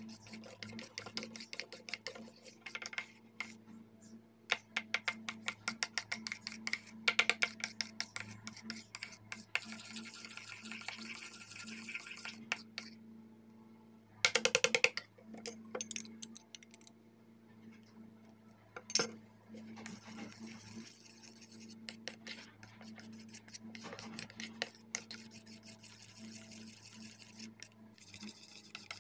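Metal spoon stirring and scraping thick shampoo mixture in a small stainless steel bowl, with irregular clinks of spoon against steel and a quick run of louder clinks about halfway through. A steady low hum runs underneath.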